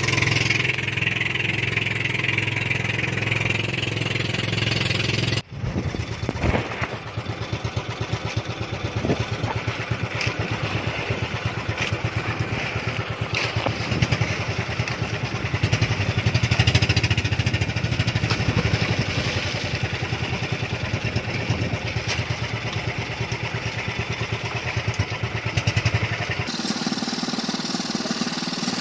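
A small engine running steadily with a rapid, even pulse. Its sound changes abruptly about five seconds in and again near the end.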